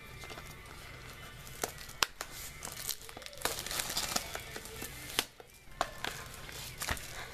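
Foil Bowman Chrome card pack wrappers crinkling and rustling as packs are handled in and around the box, with scattered sharp clicks and taps; the rustling is busiest from about three and a half to five seconds in.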